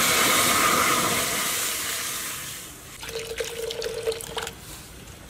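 Liquid poured into a hot wok: a loud hiss of steam as it hits the hot metal, fading out over the first two or three seconds, then the stream splashing into the pooled liquid for about a second and a half.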